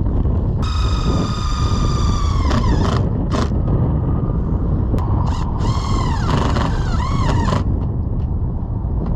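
Steady low rumble of wind and traffic. Over it, a high whistling squeal slides down in pitch about a second in, and a few shorter, bending squeals follow a few seconds later.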